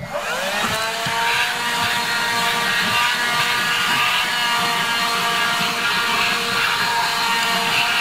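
AEG HX6 7.2 V lithium-battery handheld vacuum switched on, its motor whining up to speed within the first second, then running at a steady pitch with a rush of air as the nozzle is worked over car floor carpet.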